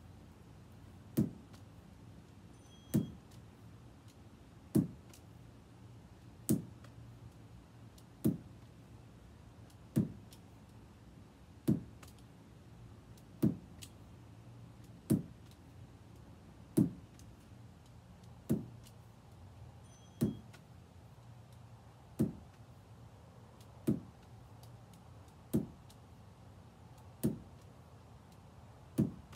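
Lacrosse ball striking a wall in steady wall-ball passing, one sharp thud about every 1.7 seconds, with fainter ticks in between.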